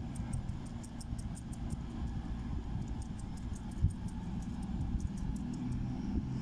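Low rumble and engine drone of a Cross Country Class 221 Voyager diesel train approaching in the distance. Over it come fast, evenly spaced, high insect chirps, several a second.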